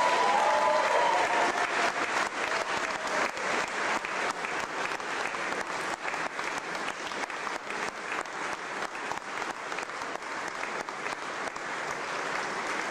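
Crowd applauding, loudest at the start and easing off slightly over the next several seconds.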